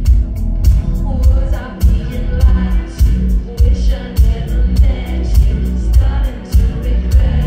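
Live band playing a dance-pop song with a steady beat and heavy bass, a woman singing the lead vocal over it.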